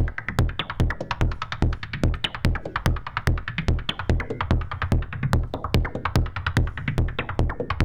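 Make Noise Shared System modular synthesizer playing a synthesized electronic beat built without drum modules: steady low kick-like thumps about twice a second, with rapid sharp high ticks between them.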